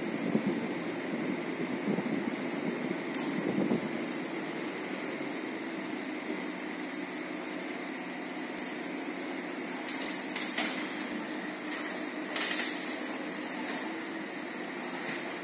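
Crane truck's engine running steadily to power its hydraulic grapple crane, louder over the first few seconds. A few short sharp clicks and knocks are heard through it.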